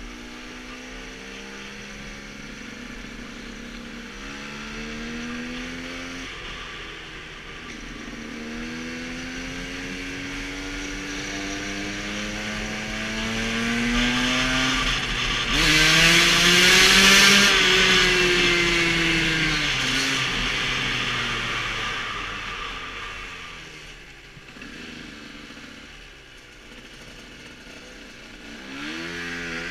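KTM 125 two-stroke enduro motorcycle engine pulling through the gears, its pitch rising and dropping back with each shift several times. It is loudest about halfway, with wind rush over the microphone, then falls off and picks up again near the end.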